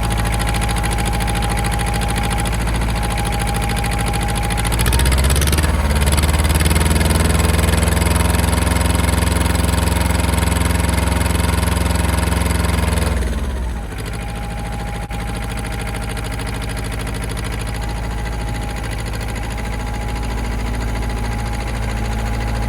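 Ford 1700 compact tractor's three-cylinder diesel engine running, revved up about five seconds in and held at higher speed for about eight seconds before dropping back, as the tractor works its loader to lift a heavy log.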